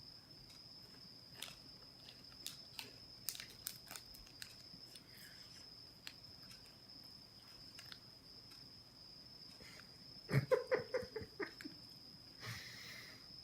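Biting into and chewing a crisp KitKat wafer: scattered faint crunching clicks, then a quick run of about eight louder crunches just after ten seconds in, and a short rustle near the end.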